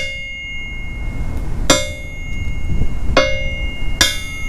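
A steel I-beam used as an anvil struck four times, each blow leaving a high metallic ring that hangs for a second or more, the last two strikes coming close together near the end. The beam rings and vibrates freely, which the owner puts down to its unsupported free ends.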